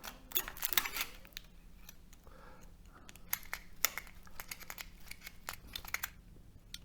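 Steel transformer core laminations being scraped and pried apart with a knife: irregular sharp clicks, short scrapes and light metallic clinks.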